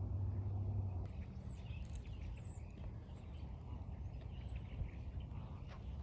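Steady low outdoor rumble, heavier in the first second, with a few faint, high bird chirps from about a second and a half in.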